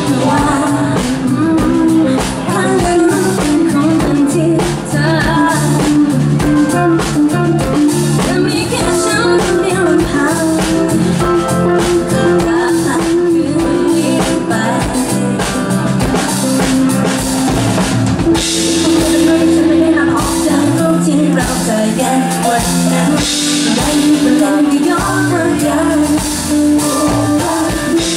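Live band playing a song: a woman sings lead over a drum kit and keyboard.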